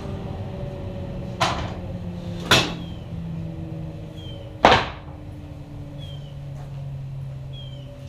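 Wooden boards set down with three sharp knocks, wood on wood: two about a second apart, then a louder one about two seconds later, over a steady low hum.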